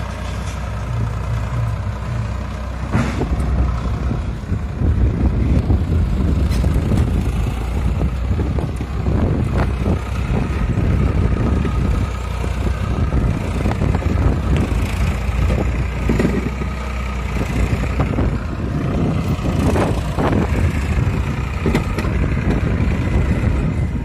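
Farmtrac 60 EPi tractor's three-cylinder diesel engine working hard as it pulls a heavily loaded trolley, growing louder about three seconds in and staying loud.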